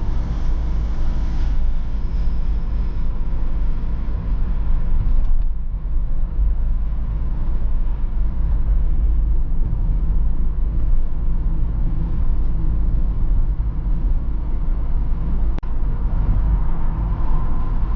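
In-cabin sound of a BMW E46 320d on the move: its four-cylinder turbodiesel running steadily under a low road rumble from the tyres. The level dips briefly about five seconds in, and there is a single sharp click later on.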